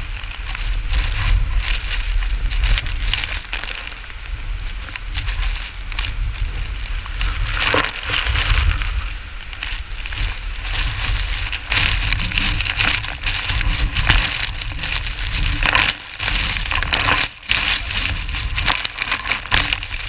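A large waterfall crashing into its pool close by, with spray and wind hitting the microphone: a steady rush with constant crackling and a low rumble.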